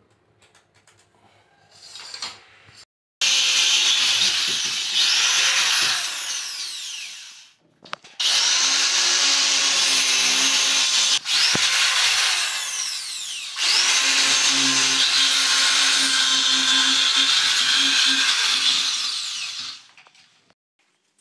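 Handheld electric power drill boring holes into a wall, in three long runs of several seconds each with short pauses between, the motor's whine sliding up and down in pitch as the speed changes.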